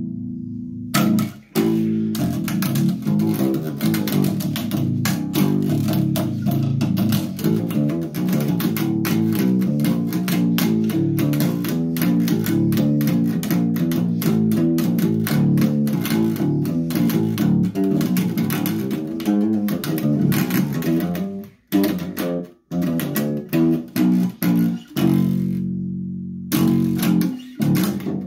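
Electric bass guitar played solo: a long, fast run of finger-plucked notes, then a few stop-start hits with short gaps, a held note, and a final note that fades out near the end.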